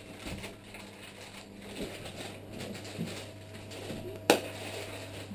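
Handling noise from a GoPro HD Hero2 as it is moved and fitted: faint rustles and small knocks over a steady low hum, with one sharp click about four seconds in.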